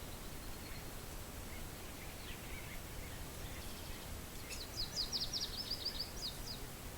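Steady wind, with a small bird singing a quick trill of about fifteen high notes a little past halfway, after a few soft chirps earlier on.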